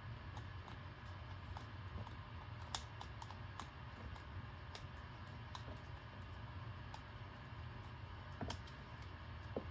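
Faint, irregular clicks and scrapes of a drill bit turned by hand to widen a hole in a 3D-printed plastic part, over a steady low hum.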